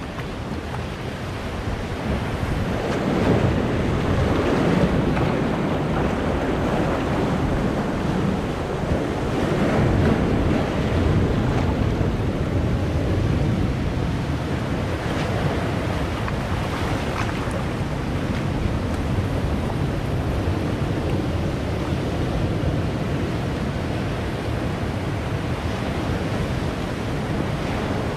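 Sea waves breaking and washing in among large boulders on a rocky shore, in a steady rush of surf that swells louder about three seconds in and again around ten seconds.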